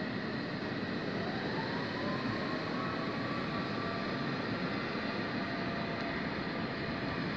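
Corail train hauled by a BB 22200 electric locomotive running, a steady rush of rolling noise with faint whining tones, one of them rising slowly about a second in.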